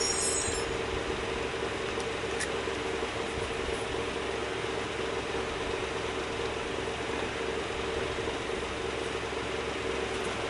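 Steady mechanical hum of workshop machinery running, with one light click a couple of seconds in.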